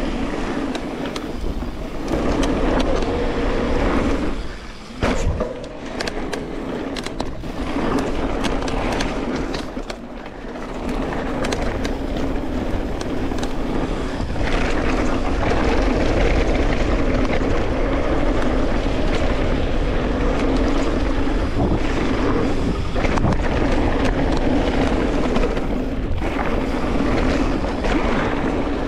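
Electric mountain bike ridden down a dirt jump trail: a continuous rush of tyre and wind noise with scattered knocks and rattles, over a steady hum. The noise drops away briefly twice, about five and ten seconds in.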